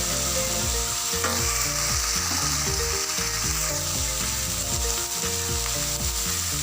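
Shaved corn, shrimp, garlic and onion sautéing in oil in a pan, sizzling steadily while being stirred.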